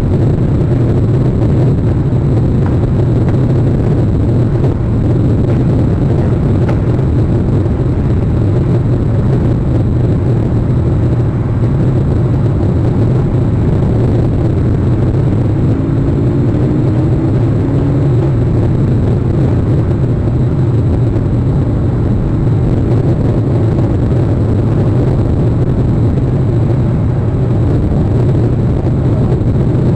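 Steady low rumble of wind buffeting an outdoor microphone.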